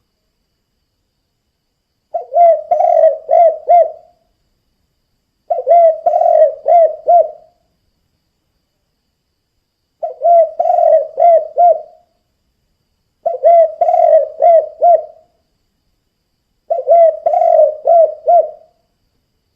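Spotted dove (tekukur) cooing in its 'kuk 2' style: five phrases, each a quick run of about four or five coos lasting some two seconds, separated by silent pauses.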